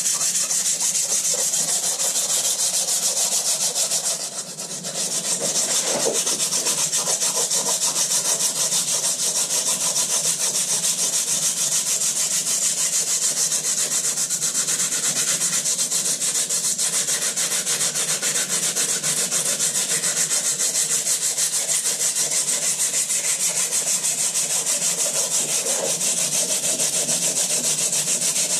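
Hand sanding: a small part rubbed back and forth on a sheet of abrasive paper laid on a flat plate, a steady fast scratching. There is a short break about four seconds in.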